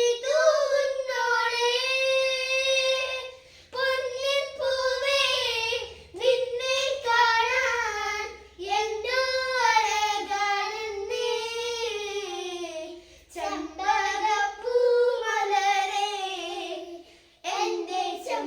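A child singing a Malayalam folk song unaccompanied, in phrases separated by short breaths.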